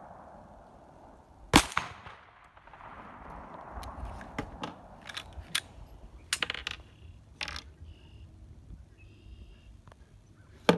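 A Glock 40 MOS 10mm pistol fires one loud shot about a second and a half in, followed by a series of quieter sharp cracks and clicks over the next few seconds.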